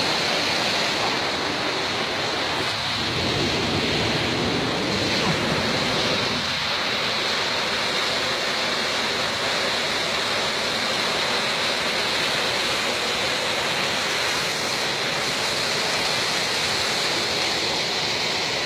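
Waterfall pouring steadily: a constant rush of falling water.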